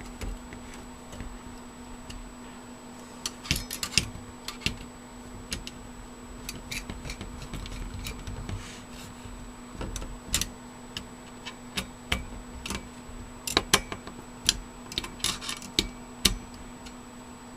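Irregular sharp metal clicks and taps from a screwdriver working the screws of a spring-loaded, backplate-mounted CPU cooler on a PC motherboard, some coming in quick clusters, over a steady low hum.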